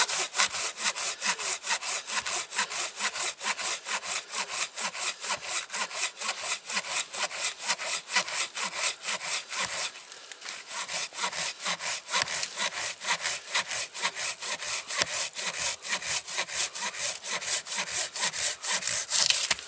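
Silky Gomboy 300 folding handsaw cutting through a fresh birch log in quick, even back-and-forth strokes, several a second, with a brief slackening about ten seconds in.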